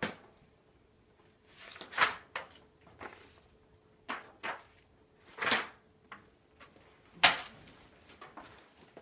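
Handling noise: a string of short, irregular rustles and knocks, the loudest about seven seconds in.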